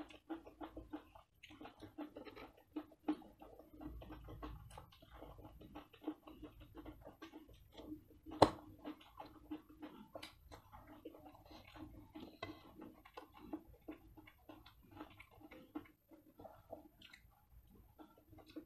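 Close-miked eating: chewing and slurping of hakka noodles and fried rice, with many small clicks of steel forks against steel plates. One loud, sharp click comes a little past eight seconds in.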